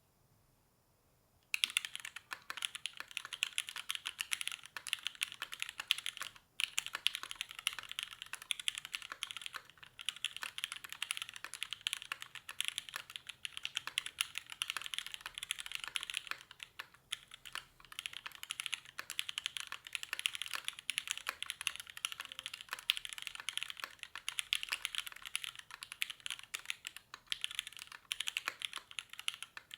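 Fast, continuous typing on a Haus 65 mechanical keyboard with lubed NOS vintage Cherry MX Black linear switches, C3 stabilisers, an aluminium top-mount plate and CRP Desko keycaps. Keystrokes start about a second and a half in and run dense and even, with two brief pauses.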